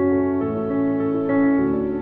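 Calm background music: sustained, gently shifting chords of a new-age style with soft keyboard tones.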